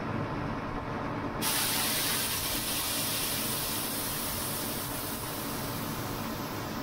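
A steady hiss of liquid rushing under pressure switches on suddenly about a second and a half in, as the crop sprayer is being loaded, over an engine running steadily underneath.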